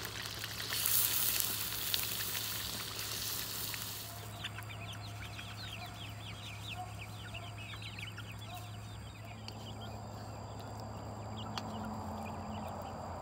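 Raw chicken pieces sizzling loudly for a few seconds as they are added to a hot oiled wok. After that, a flock of chickens clucks and chirps close by in a run of many short, quick calls.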